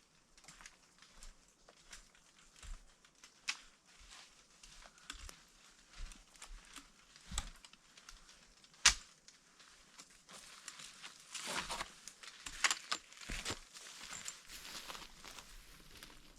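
Footsteps crunching on a forest trail, an uneven run of crackling steps. There is one sharp snap about nine seconds in, and the crunching grows denser and louder in the second half.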